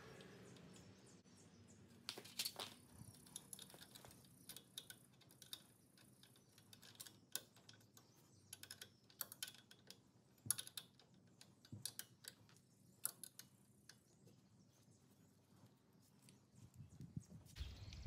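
Faint, scattered small metallic clicks and taps from hand work on a Brembo fixed brake caliper, as the center pin is fitted back through the new brake pads.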